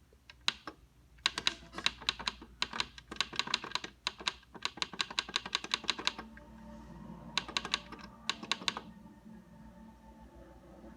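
A rapid, irregular run of sharp clicks, several a second, like small buttons or keys being pressed over and over. A faint low steady hum comes in about six seconds in.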